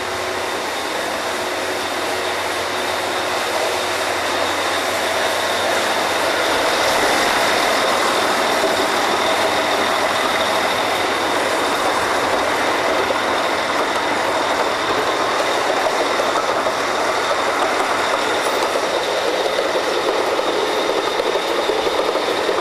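Steady, loud din of drilling-rig machinery running, with a few steady whining tones over it, growing a little louder several seconds in.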